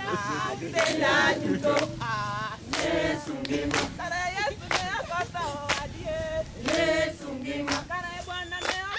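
A group of voices singing together without instruments, with sharp hand claps falling between the sung phrases.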